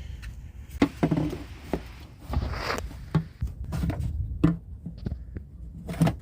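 Hand tools and parts knocking and clicking in the engine bay while the alternator and its drive belt are refitted, with a short scrape about two and a half seconds in.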